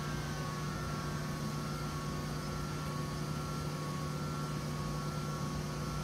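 Steady machine hum from a Lochinvar Power-Fin water heater, with a faint whine sliding gently down in pitch over the first couple of seconds as its combustion blower winds down after post purge.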